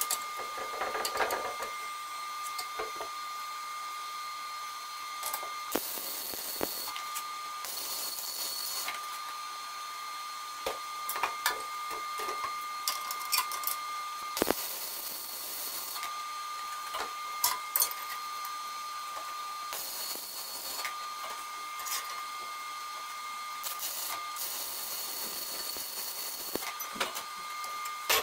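Arc welding on steel: about five crackling bursts, each a second or two long, as parts of an angle-steel frame are tacked. A steady high whine runs between the bursts, with scattered sharp metal knocks.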